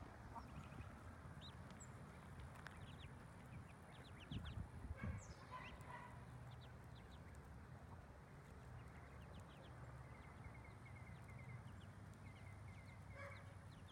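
Faint, high peeping of Muscovy ducklings, scattered throughout, with a few lower calls around five seconds in and again near the end.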